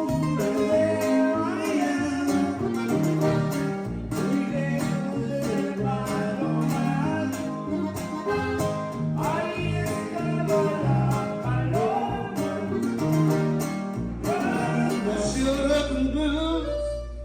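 Guitar music with a bright plucked, strummed accompaniment and some singing, cutting off abruptly at the end.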